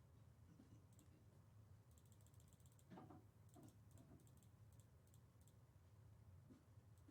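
Near silence over a low steady hum, with faint scattered clicks and a few soft handling knocks about three seconds in.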